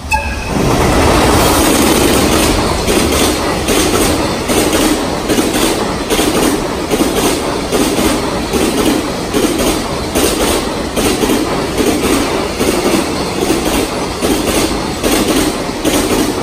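Electric-hauled container freight train passing at speed on ballasted track. It starts suddenly loud as the locomotive arrives, then the container wagons follow in a steady rumble with a fast, even clickety-clack of wheels over the rail joints.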